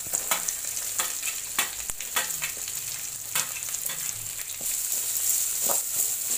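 Chopped onion sizzling as it goes into hot oil over tempered mustard seeds, dals and peanuts, the first step of sautéing it. A spatula scrapes and knocks against the metal pan over and over while stirring, and the sizzle grows louder about two-thirds of the way in.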